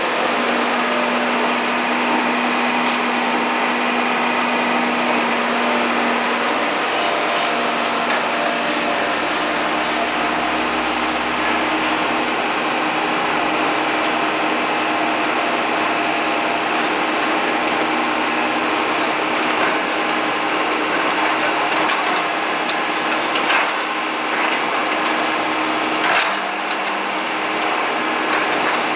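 Caterpillar E240B excavator's diesel engine running steadily, with two sharp knocks in the last few seconds.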